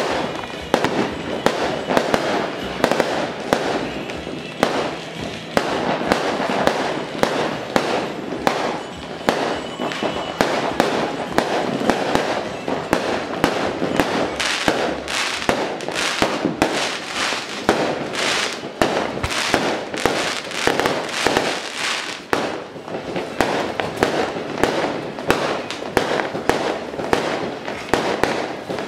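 A long string of firecrackers going off in a rapid, continuous crackle of sharp bangs.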